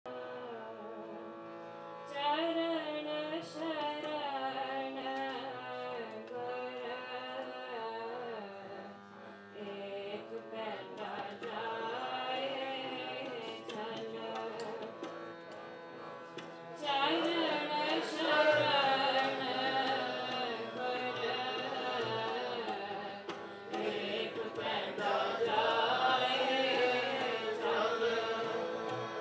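Sikh kirtan: a woman singing to a hand-pumped harmonium with tabla accompaniment. The harmonium's held notes sound alone at first, the melody comes in about two seconds in, and the music grows louder about seventeen seconds in.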